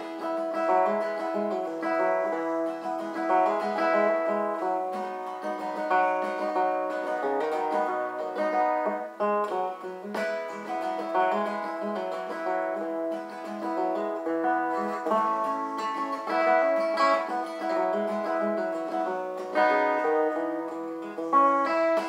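Capoed steel-string acoustic guitar playing a chord progression, an instrumental passage with no singing.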